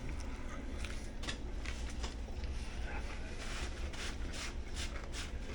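A person chewing a sandwich close to the microphone: irregular wet crackly mouth sounds, coming faster in the second half, over a steady low hum.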